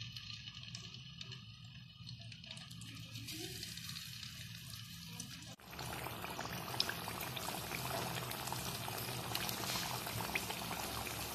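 Potato smileys deep-frying in hot oil: a faint sizzle that becomes suddenly louder and denser about halfway through, full of small crackles and pops.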